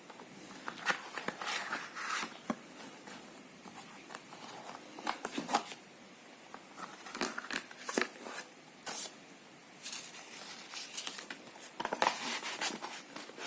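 Retail packaging of a flash drive being handled and opened: intermittent rustling, crinkling and sharp clicks in several short clusters.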